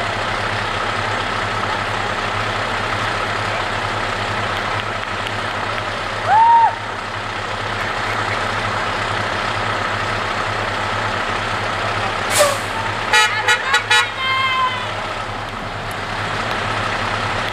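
Steady hum of a dump truck's diesel engine idling, with cars passing. A short toot about six seconds in, then a string of quick car-horn honks near the end.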